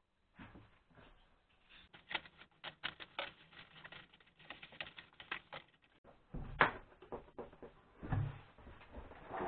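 Plastic courier mailer bag crinkling and crackling as it is handled and opened and a cardboard box is pulled out of it. A louder thump comes about six and a half seconds in and a low thump about a second and a half later as the box is handled.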